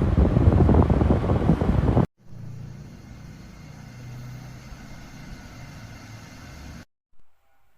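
Electric kettle at a loud, rumbling boil with crackling bubbles, cut off abruptly about two seconds in. A much quieter low hum follows for several seconds and stops short near the end.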